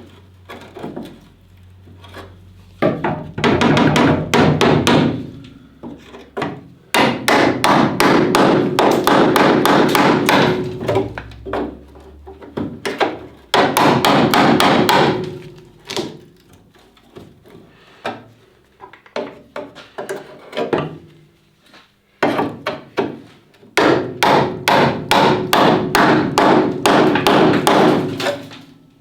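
Repeated rapid hammering on car-body sheet metal, in several loud bursts of a few seconds each, with scattered single taps between them.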